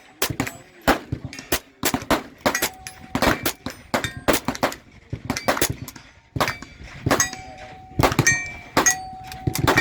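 Gunshots fired in quick, irregular succession on a firing line, with steel targets ringing with a clear tone after several of the hits.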